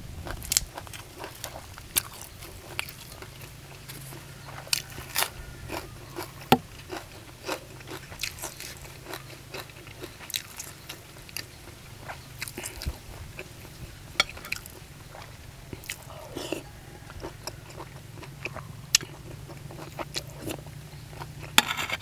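Close-miked chewing and biting of crunchy food, with many sharp crunches at irregular intervals over a steady low hum.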